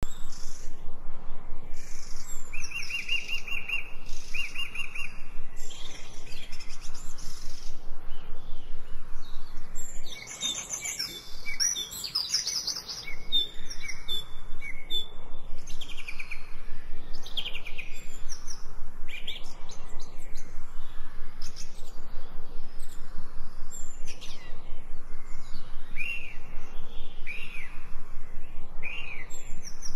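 Songbirds chirping and singing: many short whistled calls and quick up-and-down notes, with a steady high trill repeated twice in the first few seconds.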